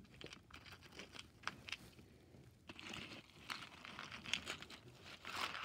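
Plastic pony beads clicking and rattling faintly as a hand stirs through them in a cardboard box, with a brief lull just past the middle.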